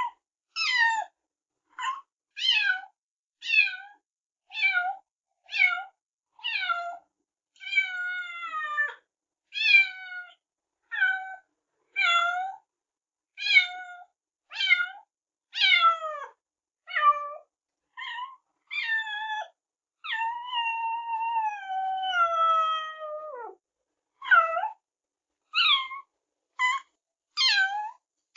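A cat meowing over and over, about one meow a second, each call falling in pitch. About two-thirds of the way through comes a longer drawn-out meow that slides down.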